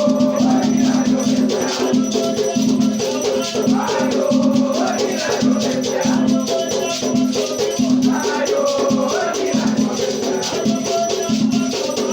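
Batuque ritual music: a drum beating a steady rhythm under continuous rattling from gourd shakers (agê), with voices chanting songs to the orixás.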